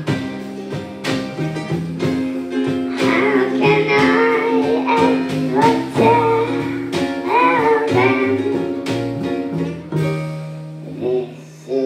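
Live band music: a girl singing over plucked strings, upright bass and drums. About ten seconds in the singing drops away while the band holds a low note.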